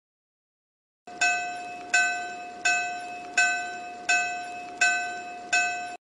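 Japanese level-crossing warning bell (the 'kan-kan' alarm) ringing, starting about a second in: seven even dings about 0.7 s apart over a steady ringing tone. It cuts off suddenly at the end.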